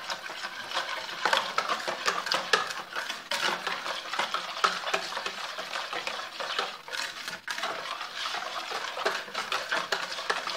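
Metal wire whisk stirring a thin, syrupy liquid in a plastic bowl: a continuous run of quick, irregular clicks and scrapes as the wires knock and drag against the bowl.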